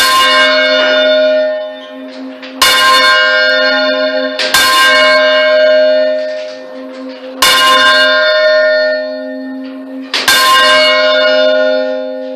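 Church bells of a six-bell ring hung for full-circle ringing, heard close up in the belfry: loud single clangs, about five of them a few seconds apart, each ringing on with a long hum. The last clang, about ten seconds in, dies away.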